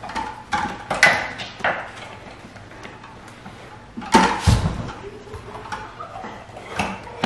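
Plastic tire levers and a tight rubber tire bead being worked over a mountain bike rim with a tire insert inside: scattered clicks and knocks near the start, and a heavy thump about four seconds in.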